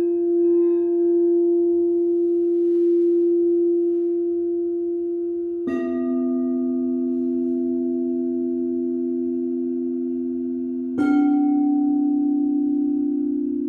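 Singing bowls ringing: one bowl's long sustained tone, then two more bowls struck, about six and about eleven seconds in, each adding a lower tone that rings on alongside the others with a slow wobble.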